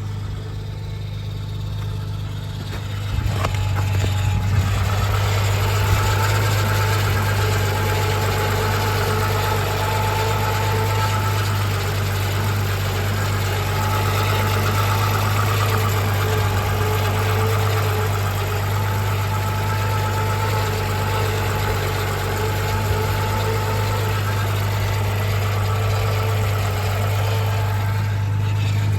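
Audi A6 C4 V6 engine idling steadily with its V-ribbed accessory belt removed, so the belt-driven accessories are not turning. It gets louder about three seconds in.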